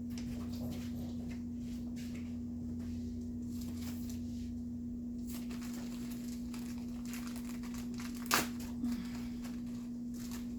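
Steady low hum with faint rustling, and a single sharp knock about eight seconds in.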